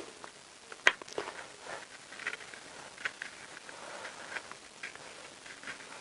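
Dipstick filler cap being screwed by hand into the engine's clutch cover: a sharp click about a second in, then faint ticking and rubbing as the cap is turned on its threads.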